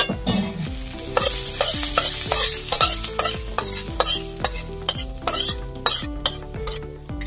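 A metal spoon scraping freshly fried chopped onion, garlic and green chilli around the inside of a hot metal wok (kadai), in quick repeated strokes.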